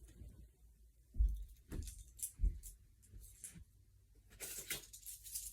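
Handling noises as someone rummages for handcuffs: a few scattered soft knocks and thumps, then a rustle near the end.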